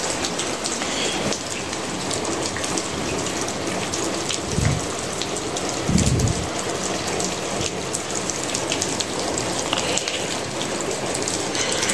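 Heavy rain falling steadily, with many small drop ticks on hard surfaces. Two short low thuds come at about four and a half and six seconds.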